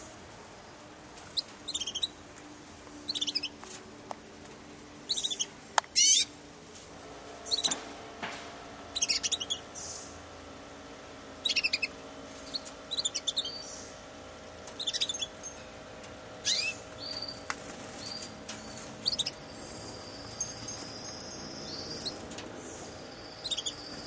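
Young Russian canaries chirping: short, high call notes every second or two, the loudest about six seconds in. Near the end a steady high-pitched buzzing tone sets in beneath the calls.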